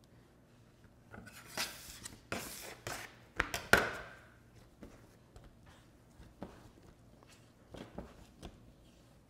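Hands shaping a ball of oat sourdough dough on a worktop: a quick run of slaps and rubbing smacks of the dough against the surface, the loudest about four seconds in, then only a few light taps.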